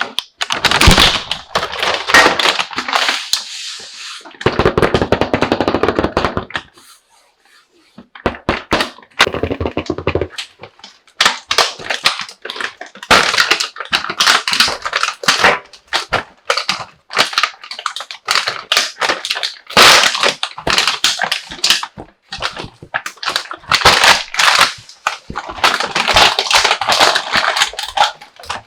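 Crinkling plastic packaging with small hard plastic toy pieces clicking and knocking together as a toy kitchen and dining set is unpacked, in quick irregular bursts with a short pause in the middle.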